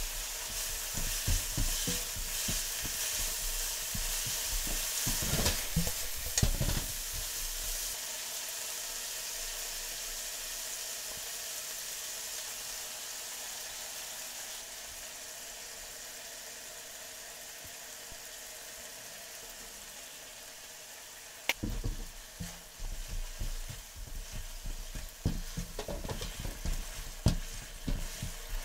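Chicken thigh pieces sizzling in oil in a nonstick frying pan, stirred and tossed with a slotted turner: scraping strokes against the pan for the first several seconds and again from about three-quarters through, with a steady sizzle between that slowly gets quieter.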